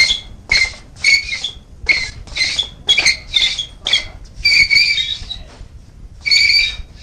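A run of short, high-pitched squeaks, mostly about two a second, breaking off briefly twice.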